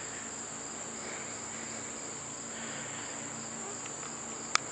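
Insects trilling outdoors: one steady, unbroken high-pitched note. A single sharp click sounds just before the end.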